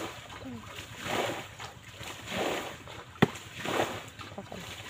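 Shallow, muddy pond water being scooped and thrown out with a pan: four rhythmic splashes, about one every second and a quarter. A single sharp click about three seconds in.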